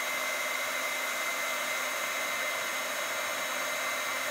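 Darice Heat Tool embossing heat gun running steadily: an even rush of hot air from its fan with a thin high whine over it, as it melts gold embossing powder on the card.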